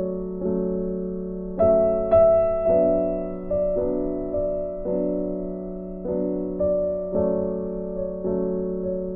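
Background piano music, slow notes struck about once a second and left to ring.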